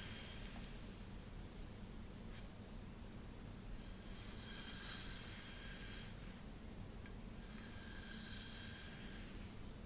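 Soft rustling strokes through long hair, close to the microphone: three slow swishes, near the start, around the middle and near the end, with a couple of faint ticks between them.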